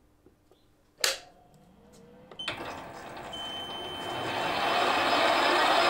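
A sharp click about a second in, then a metal lathe starts up: its motor whine and running noise build over a couple of seconds and settle into a steady run.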